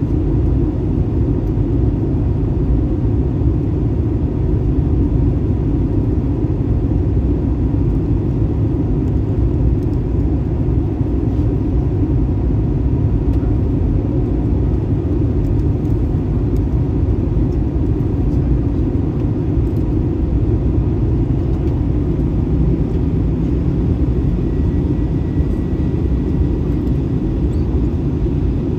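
Steady cabin noise of an Airbus A321-211 in flight: a deep, even rumble of engines and airflow with a faint steady hum above it.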